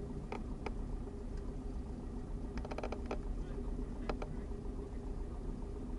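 Cessna 172 SP's four-cylinder Lycoming engine running at low power, heard as a steady drone inside the cabin, with a few sharp clicks scattered through it, including a quick run of clicks about two and a half seconds in.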